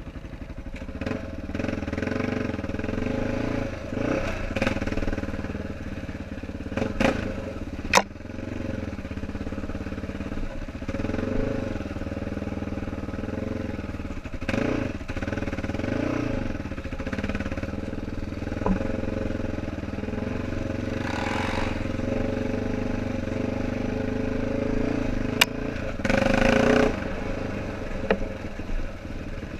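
ATV engine running along a trail, its pitch rising and falling a little with the throttle, with a few sharp knocks and clatters from the machine over rough ground and a couple of short, louder rushing noises near the end.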